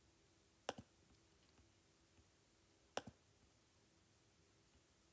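Two short, sharp clicks about two seconds apart, each a quick double, against near silence.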